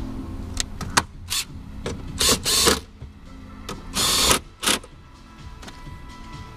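Dashboard parts being handled and worked: a few sharp clicks, then three short scraping or rustling noises.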